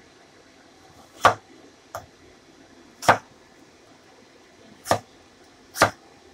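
Cleaver chopping through winter melon onto a wooden chopping board: four sharp knocks at uneven intervals, with a lighter tap between the first two.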